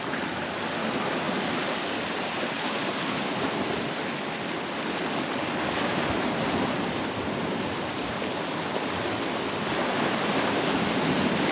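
Sea waves washing on the shore: a steady rushing surf.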